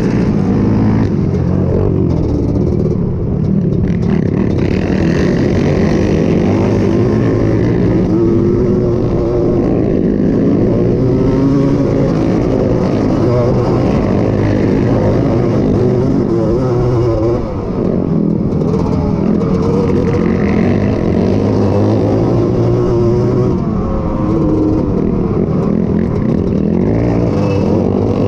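Two-stroke single-cylinder engine of a Honda ATC250R three-wheeler at race pace, revving up and falling off again and again as the rider works the throttle around the motocross track. The engine briefly drops off about two-thirds of the way through.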